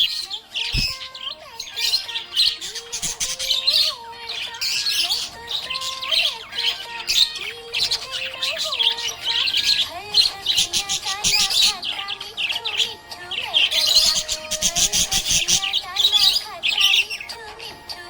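Budgerigars chirping and warbling in rapid, continuous bursts, busiest at about four to five seconds in and again near the end, over a faint background melody.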